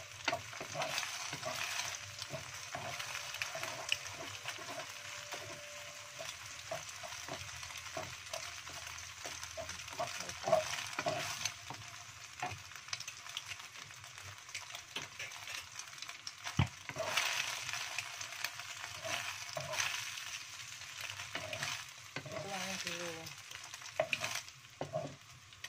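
Eggs frying in oil in a nonstick wok, sizzling, while a wooden spatula scrapes and taps against the pan, breaking them into scrambled pieces.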